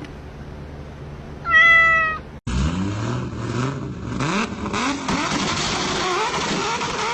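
A cat meows once, a short call held steady for under a second. After an abrupt cut, a louder continuous noisy sound with repeated rising and falling sweeps in pitch carries on to the end.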